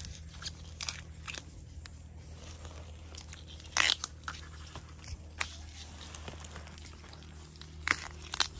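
Dry bamboo leaf litter crackling and crunching under a gloved hand as young bamboo shoots are snapped off at the base. The loudest crisp snap comes about four seconds in, with smaller crackles scattered through.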